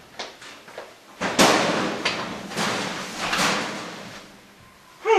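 A series of hard thuds and bangs echoing in a hallway. A few small knocks come first, then a loud bang about a second and a half in, followed by more bumps over the next two seconds. A short vocal sound falls in pitch at the very end.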